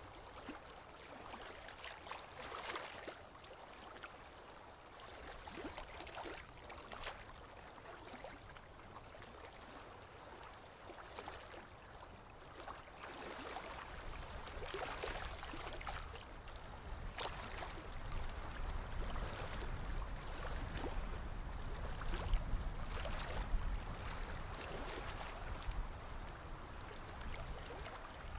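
Repeated strokes of a drawing tool scratching across paper, coming in uneven swells, with a low rumble that grows through the second half.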